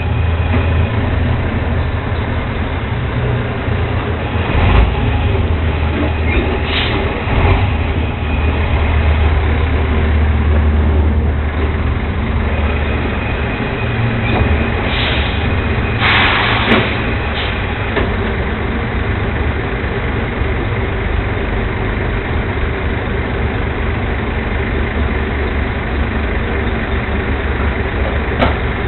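Leach rear-loader garbage truck's engine running steadily, a little louder for a few seconds about a third of the way in. A few knocks come early, and a short burst of noise comes a little past the middle.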